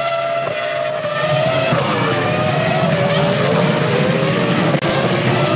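Several Formula One V10 engines running at high revs. Their notes fall and rise as the cars brake, change gear and accelerate.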